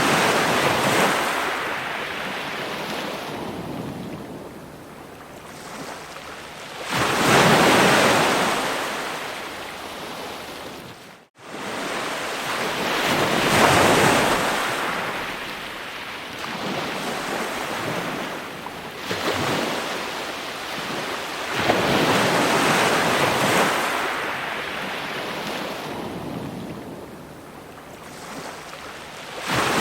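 Ocean waves breaking on a shore, each wave surging up and washing back every five to seven seconds. The sound drops out abruptly for a moment about eleven seconds in.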